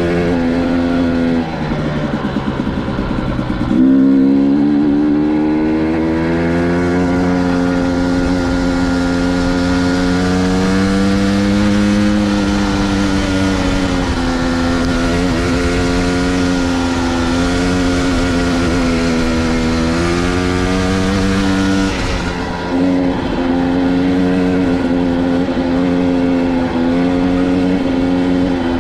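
Dirt bike engine running continuously, its pitch rising and falling with the throttle. It revs up sharply about four seconds in, which is the loudest moment, drops briefly around twenty-two seconds, then runs steadily again.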